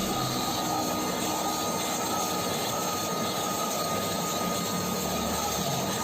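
Kärcher WD 2 wet-and-dry vacuum cleaner running steadily: an even rush of air with a thin, steady whine on top.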